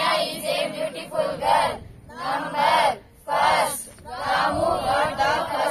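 A class of schoolchildren reciting aloud in unison, a chorus of voices chanting short phrases with brief pauses between them.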